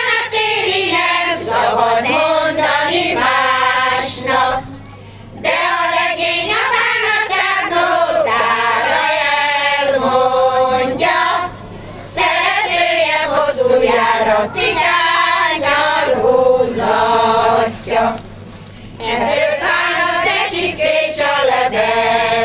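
Women's choir singing a Hungarian folk song, older women's voices together, with short breaks between phrases about every six seconds.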